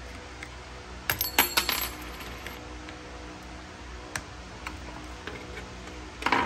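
Small metal pieces clinking and clattering with a bright metallic ring. It comes as a burst of several strikes about a second in, one sharp click midway, and another short clatter near the end.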